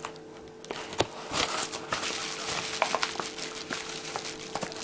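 Bubble-lined padded mailer crinkling and crackling as hands rummage inside it and pull out a plastic jar: irregular crackles, with a sharp click about a second in and denser crinkling after it.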